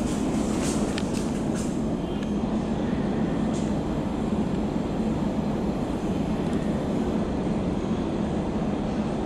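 Steady low rumble of a not-in-service MTR train running through the underground station, with a few sharp metallic clicks during the first two seconds.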